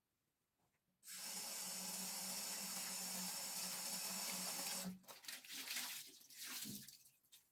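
Tap water running into a sink, starting about a second in. Then the flow turns into uneven splashing, as if something is held under it, and stops near the end.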